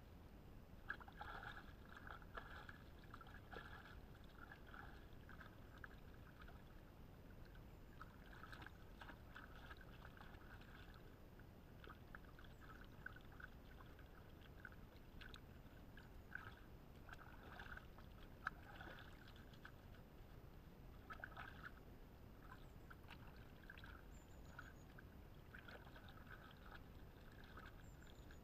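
Faint, irregular sloshing and small splashes of lake water as hands scrub muddy clothes under the surface.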